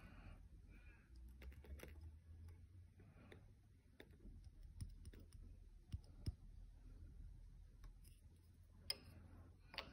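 Faint, scattered clicks and light taps of small clear plastic cups being handled, one held over another.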